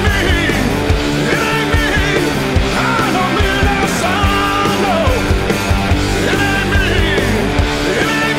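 Rock song with singing over a steady beat.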